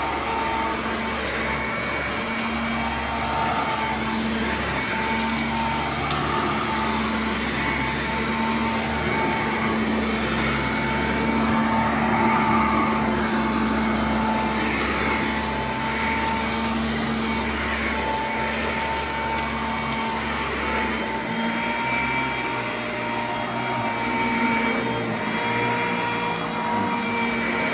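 Sanitaire commercial upright vacuum cleaner running steadily with a motor whine as it is pushed over carpet, with occasional light crackles as grit is sucked up.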